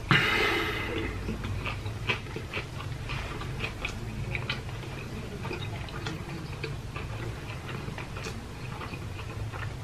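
Close-miked chewing: irregular wet clicks and lip smacks of a man eating fast food, over a low steady hum, with a brief breathy rush at the start.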